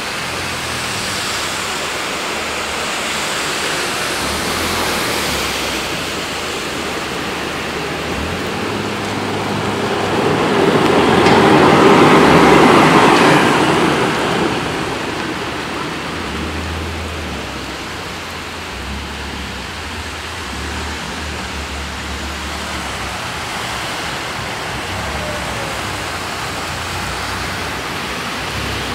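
Heavy downpour and floodwater rushing along a street, a steady loud hiss that swells louder for a few seconds near the middle.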